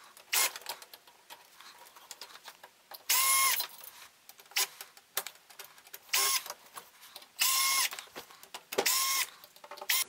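Cordless power screwdriver backing screws out of the back of a flat-screen TV in four short runs of a steady motor whine, each under a second, with small clicks of screws and tool between them.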